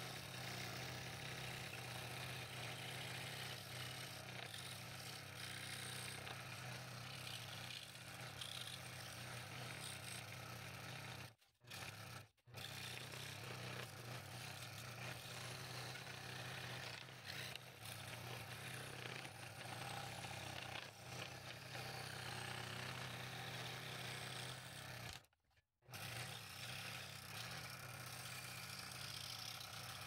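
Scroll saw running steadily as its blade cuts a thin piece of light walnut, with a constant motor hum under the cutting noise. The sound drops out briefly twice around the middle and once more near the end.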